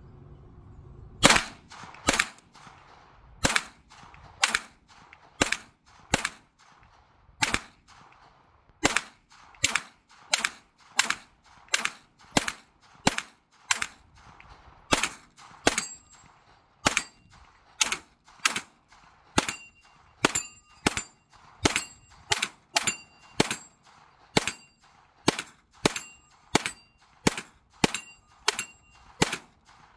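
CZ Scorpion carbine firing rapid semi-automatic shots, about forty in a string at one or two a second, starting about a second in and stopping just before the end. From about halfway through, many shots are followed by a short metallic ping of bullets striking a steel target.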